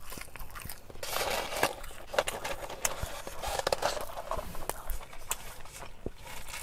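Close-miked eating sounds: chewing and biting fast food, with many small sharp crackly clicks and a denser stretch of noise about a second in.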